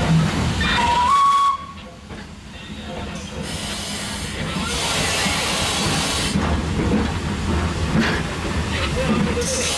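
Steam hissing inside the cab of a WP-class Pacific steam locomotive. A short high tone sounds about a second in, then the sound drops suddenly and the hiss builds back up to a steady level.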